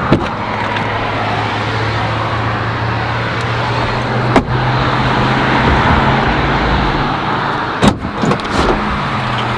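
A vehicle driving: a steady engine hum over road noise, with a sharp click about four and a half seconds in and another near eight seconds.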